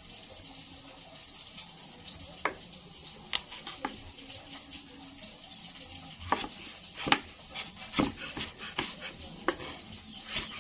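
Kitchen knife knocking on a cutting board while slicing onion: a few separate knocks at first, then more frequent ones, about one or two a second, from about six seconds in. Under them runs a faint steady sizzle of calamares frying in oil.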